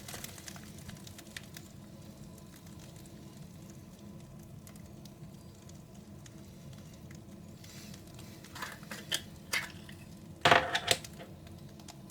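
Small product container and its packaging being handled by hand: scattered light clicks and rustles, with a few louder knocks and rustles about ten and a half seconds in.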